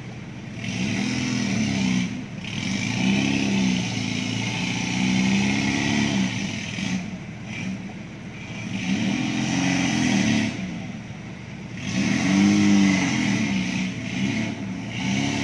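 Off-road 4x4's engine revving hard in repeated bursts, its pitch climbing and falling in each one, with short drops to a lower run between bursts, as the vehicle works through deep mud.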